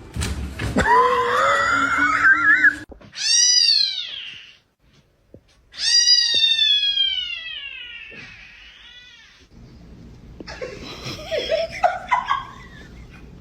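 A cat meowing loudly several times: drawn-out, wavering calls, the longest about six seconds in, sliding down in pitch.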